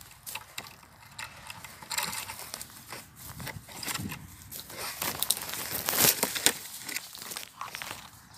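Irregular rustling and crackling made of many small clicks, loudest about six seconds in.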